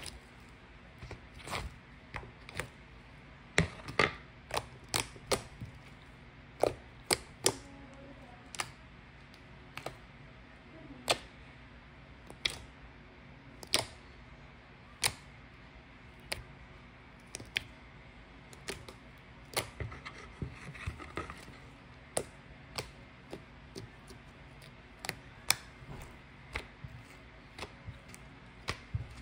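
Irregular sharp clicks and taps, about one or two a second and varying in loudness, over a faint steady hum.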